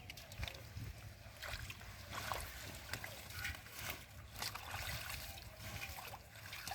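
Hands splashing and sloshing in shallow muddy paddy-field water, with irregular small splashes and drips.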